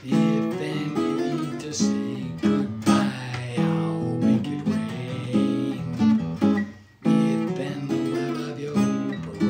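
Steel-string acoustic guitar strummed in chords, accompanying a man singing a slow song. The strumming breaks off briefly about two-thirds of the way in, then picks up again.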